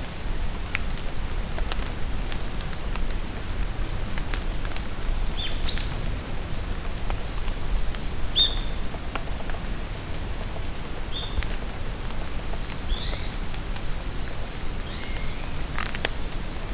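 Steady rain pattering on the forest with scattered ticks of single drops, while songbirds call: a few short down-slurred whistles and two spells of rapid, high trilling.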